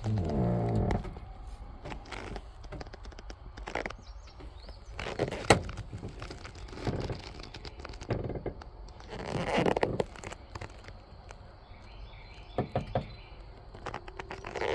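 Handling and movement noise inside a truck cab: scattered clicks, knocks and rustles with no engine running. A short whine that slides in pitch is heard in the first second.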